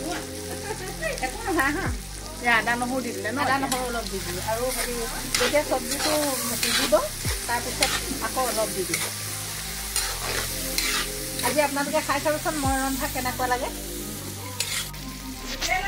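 A metal spoon stirring and scraping food in an iron wok, with scattered clinks against the pan, while the food fries and sizzles.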